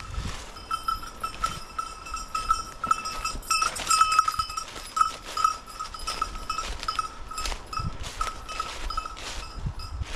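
A hunting dog's bell jingling in quick, uneven pulses as the dog works through cover searching for a woodcock. Brush rustling and crackling throughout, loudest about four seconds in.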